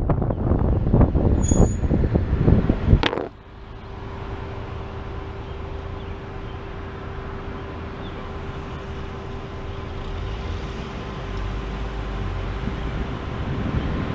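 Wind buffeting the microphone of a GoPro riding loose on the hood of a moving car. About three seconds in there is a single sharp crack as the camera falls off onto the road. After it comes a much quieter, steady low rumble of vehicle noise with a faint steady hum.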